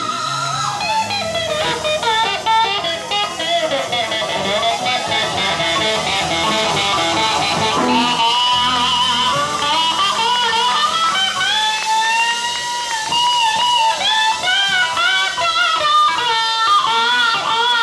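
Sacred steel gospel music: an electric pedal steel guitar plays sliding, bending melody lines over electric guitar and low bass notes.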